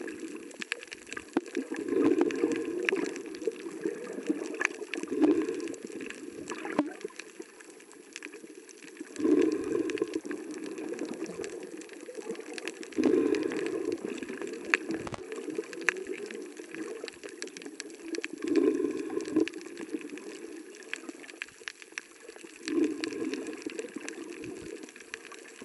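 Underwater sound of a snorkeler breathing through a snorkel: muffled, gurgling surges of breath and water that come about every four to five seconds, six times, over a steady scatter of small clicks and crackles.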